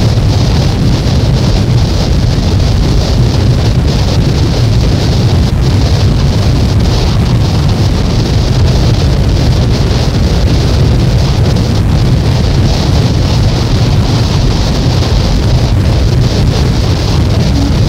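A track from a cassette album of noise music: a loud, unchanging wall of dense noise, heaviest in the deep low end, with no beat or melody. A steady low hum tone comes in just before the end.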